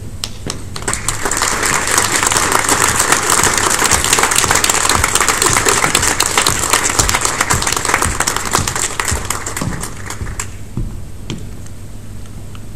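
Seated audience applauding. The clapping builds over the first couple of seconds and dies away about ten seconds in.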